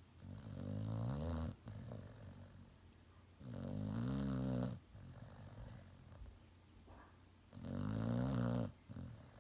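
Dog snoring: three loud snores about four seconds apart, each just over a second long and cutting off sharply, with quieter breaths between them.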